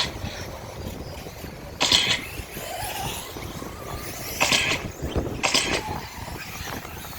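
Electric RC truggies racing on a dirt track, with several brief louder bursts of noise as trucks pass close.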